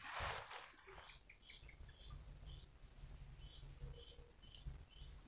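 Insects trilling steadily on one high, thin note, joined from about three seconds in by a run of short chirps. A brief rustling burst at the very start.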